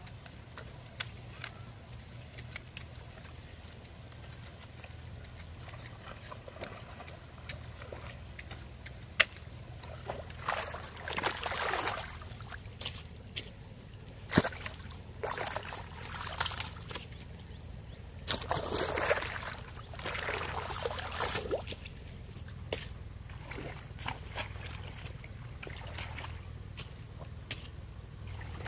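Muddy water sloshing and splashing in a flooded rice paddy as a hoe is worked through it and a person wades, in three bursts of a second or two around the middle, with scattered sharp clicks and knocks throughout.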